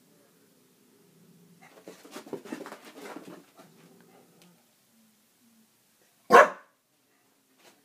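A young bulldog 'talking': low, pulsing grumbling vocalisations for several seconds, then a single sharp, loud bark about six seconds in.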